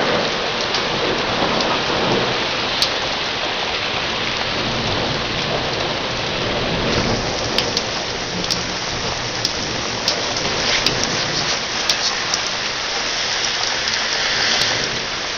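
Steady heavy rain hissing during a thunderstorm, with thunder rumbling. From about halfway through, raindrops tick sharply on a surface close by.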